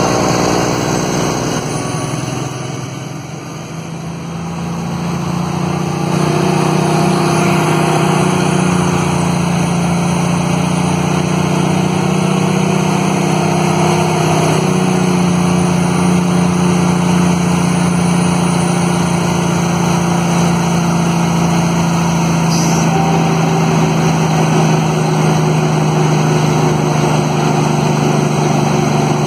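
Kenworth T800's Cummins diesel heard from inside the cab, holding the truck back on its engine brake down a long grade. It eases off for a few seconds, then from about six seconds in a loud, steady, low drone holds to the end.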